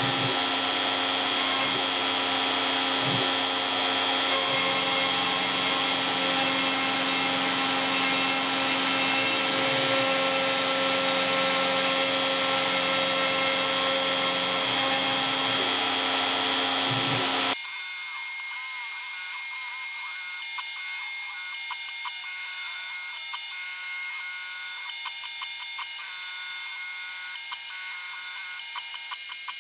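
X-Carve CNC router spinning a downcut spiral bit while it carves: a steady high-pitched whine over a rushing cutting noise. About 17 seconds in, the sound changes abruptly to a thinner high electric whine with a faint buzz.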